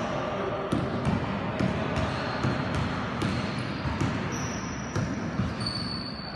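A basketball bouncing on a hard indoor court floor, with repeated thuds at an uneven pace. From about halfway in, high thin sneaker squeaks on the court join it.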